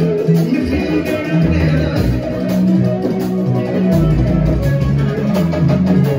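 Live band playing upbeat dance music: plucked electric guitar lines over a steady bass guitar line and drum kit.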